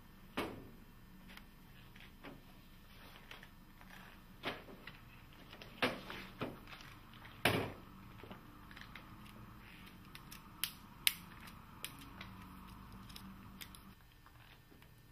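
Metal window-fitting hardware parts and a window sash being handled on a workbench: scattered sharp clicks and clacks, about a dozen in all, over a faint steady hum.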